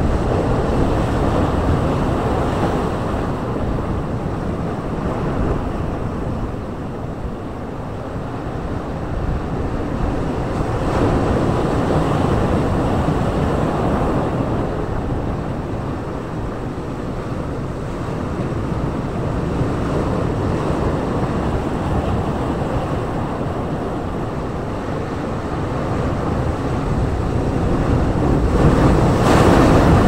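Sea surf breaking and washing over shoreline rocks: a continuous churning that swells with each incoming wave every several seconds, loudest near the end as a big wave crashes close by.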